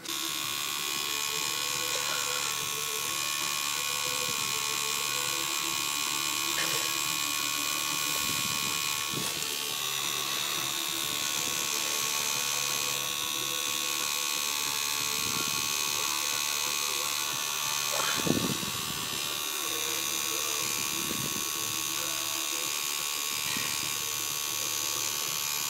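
Electric tattoo machine buzzing steadily as the needle packs white ink into the highlights of a bracelet tattoo. One brief louder sound cuts through about two-thirds of the way in.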